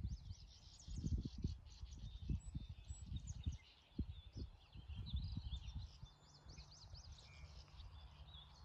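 Songbirds chirping and singing, with many quick rising and falling calls, over a low, gusty rumble of wind on the microphone.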